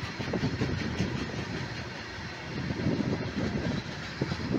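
Train wheels running on rails: a steady low rumble with rapid, irregular clatter. It eases a little midway and builds again near the end.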